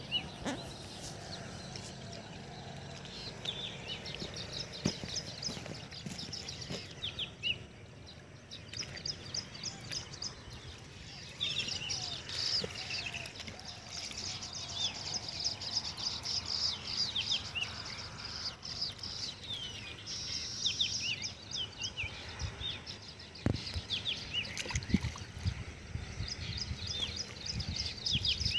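Small birds chirping steadily outdoors, many short quick calls overlapping. Near the end come a few dull splashes and knocks as spinach stems are swished and washed in shallow canal water.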